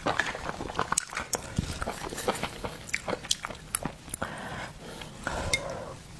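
Close-up eating sounds of someone eating shellfish: wet chewing and lip smacking with many irregular small clicks.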